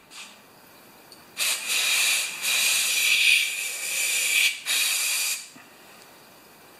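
Aerosol can of carburetor cleaner sprayed through its straw onto the wax choke actuator of a Honda GCV160 carburetor, hissing in two bursts: a long one of about three seconds, then a short one. The spray is used to chill the wax plug so it retracts.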